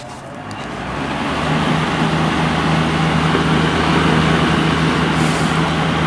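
A 12-inch Penncrest two-speed box fan, with a 1.4-amp four-pole General Electric motor, starting up on high speed. Its blades spin up over the first second or so, then it runs steadily with rushing air and a steady motor hum.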